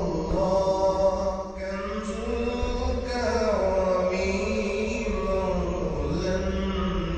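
Background music: a chanting-style vocal with long held notes that change pitch every second or two.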